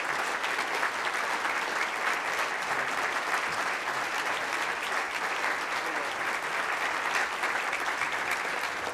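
Large seated audience applauding steadily, many hands clapping together in a dense, even patter.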